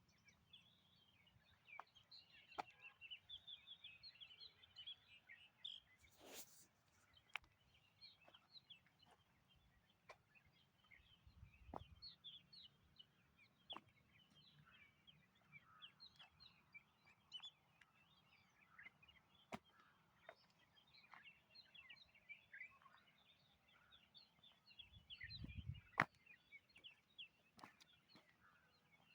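Faint chorus of small forest birds chirping and calling. It is broken by scattered clicks, a brief rustle about six seconds in, and two low thuds, one near the middle and one near the end.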